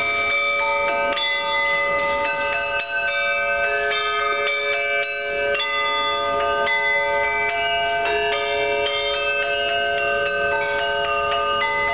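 Singing bowls struck with a mallet: many clear ringing tones overlap and hold for seconds, with a new note struck every second or so.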